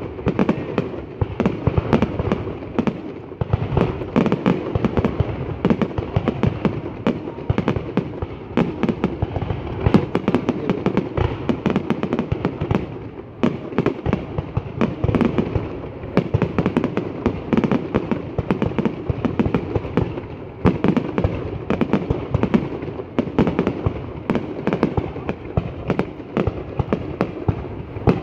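Fireworks going off in a dense, continuous barrage of sharp bangs and crackles, many a second, with a brief lull about halfway.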